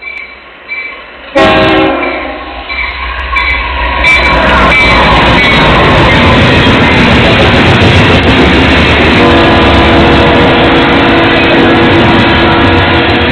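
Train sounding its horn and passing close by. The horn comes in suddenly about a second and a half in, and the loud rumble of the train going past takes over from about four seconds. The horn sounds again, held steady, from about nine seconds.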